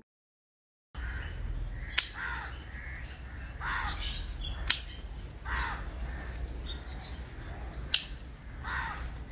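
After a second of silence, birds call outdoors, a short falling call about every two seconds. Three sharp snips sound as branches of the bonsai are cut back.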